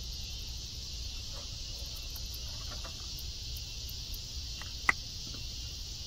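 Steady chorus of insects, a continuous high-pitched drone, with one sharp click about five seconds in.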